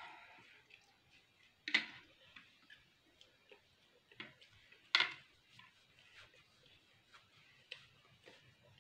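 Eating sounds close to the microphone: scattered soft clicks and mouth noises as spiral pasta is picked up by hand and chewed, with two louder sharp sounds about two seconds and five seconds in.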